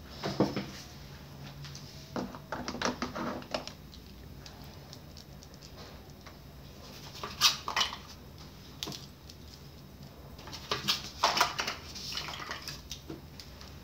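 Light clicks, taps and scratches from writing and from things being handled on a desk, in four short clusters: near the start, around two to three and a half seconds in, around seven and a half seconds, and around eleven to twelve seconds.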